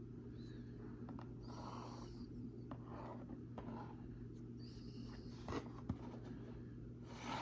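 Faint rustling and scraping of toy packaging being handled in short bursts, with a few light clicks, over a steady low hum.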